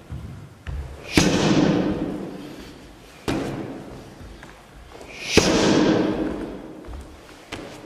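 Roundhouse kicks landing with the ball of the foot on a handheld kick shield: two loud smacks about four seconds apart, each ringing on in the echo of a large hall. Lighter thuds come in between.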